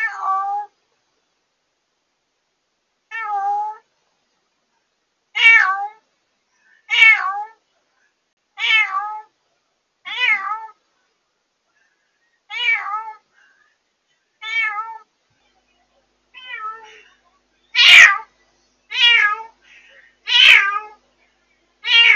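A newly rescued former stray cat meowing loudly and repeatedly, about thirteen calls each half a second long, coming faster and louder near the end. This is the night crying of a cat newly confined to a cage, picked up by a pet-monitoring camera's microphone and distorted by clipping.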